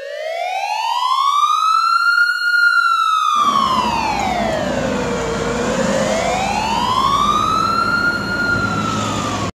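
A siren wailing in slow rising and falling sweeps, up, down and up again. About three seconds in, a low rushing noise joins it. It cuts off abruptly at the end.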